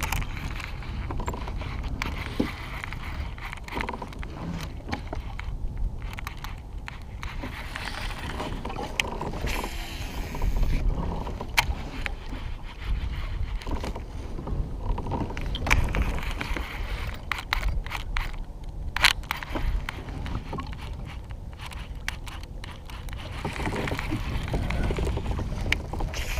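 Handling noise on a fishing kayak: a steady low rumble with scattered sharp clicks and knocks of tackle and hull, and a brief rushing hiss about ten seconds in.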